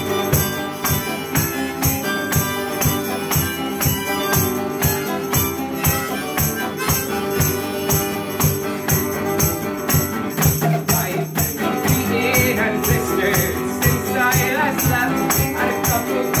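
Acoustic guitar strummed in a steady rhythm, with a man's voice singing over it near the end.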